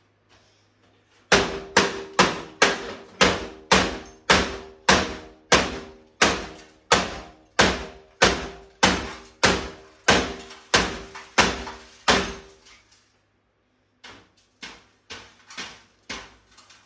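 Hammer blows on a 1988 GE CRT television: a fast, steady run of sharp strikes, about two and a half a second, each with a short ringing. After a short pause, a handful of lighter blows follow near the end.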